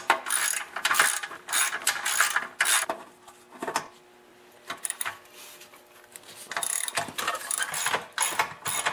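Socket ratchet wrench clicking rapidly as half-inch bolts are backed out of a small engine's cowling. There is a pause about four seconds in, then more ratcheting from about seven seconds on.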